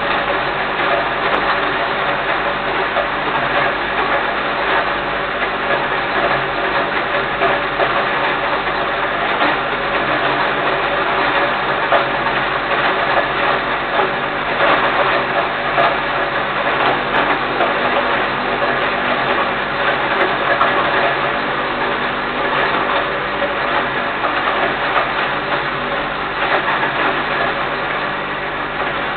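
Electric grain mill running steadily as grain is fed by hand from its hopper and milled into quail feed: a constant motor hum under a dense grinding noise.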